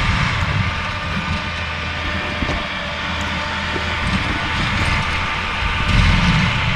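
Skid steer with a forestry mulcher attachment running steadily, an even machine drone with a steady whine held throughout.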